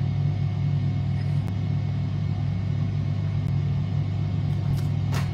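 A steady low background hum with an even level throughout. Two short hisses come near the end.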